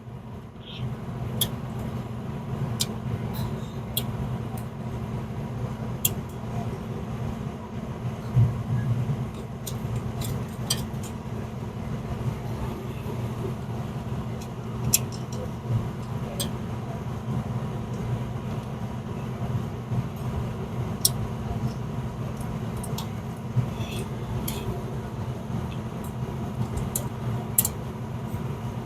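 Light metallic clicks and taps scattered irregularly over a steady low hum, as a high-limit switch is fitted and fastened back into place inside a Turbo Chef oven.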